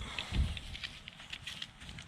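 A soft thump about half a second in, followed by a scatter of light clicks and taps, like something small being picked up and handled.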